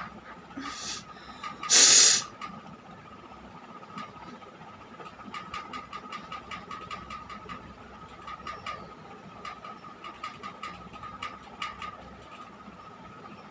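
A short, loud, hissy blast of breath from the nose about two seconds in, following a softer puff just before it, while the nose is being tickled to set off a sneeze. Faint scattered clicks and rustles follow over a thin steady hum.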